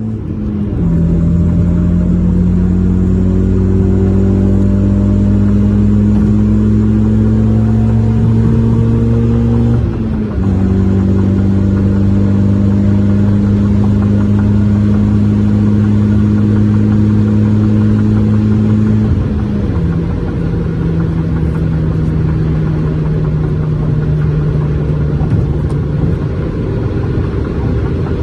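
Car engine fitted with a Skunk2 header and a full aftermarket exhaust, running under way. Its note climbs slowly, drops abruptly at an upshift about ten seconds in, climbs again, and drops at a second upshift near twenty seconds.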